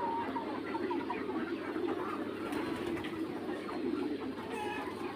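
A flock of young Mía chickens calling: a steady chorus of low, overlapping calls with many short, higher peeps scattered through it.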